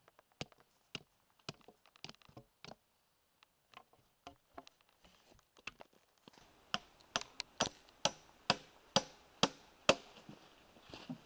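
Scattered light knocks and taps of a hammer working wood chips out of a chainsawed notch in a log. About six seconds in, a run of about eight sharp hammer blows, about two a second, toenailing a wooden stringer into the log.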